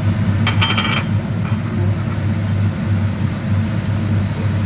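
Steady low motor hum, the loudest thing throughout, with a brief clatter about half a second in, most likely as turmeric powder is added to the pot.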